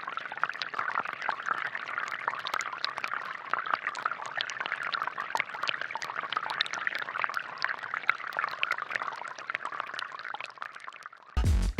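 Water trickling and splashing steadily, with many small drips and plinks. Music comes in suddenly at the very end.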